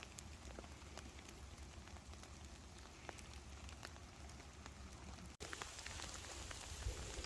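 Faint steady rain, with scattered individual drops ticking. The sound breaks off abruptly about five seconds in and resumes slightly louder.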